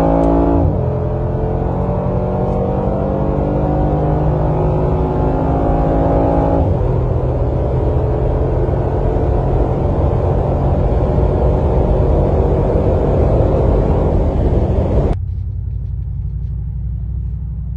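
2020 Mercedes-AMG G63's twin-turbo V8 under full acceleration. Its pitch climbs, drops once at an upshift about a second in, then climbs again for several seconds. After about seven seconds the engine note gives way to a steady rushing noise at high speed, which turns abruptly duller and quieter near the end.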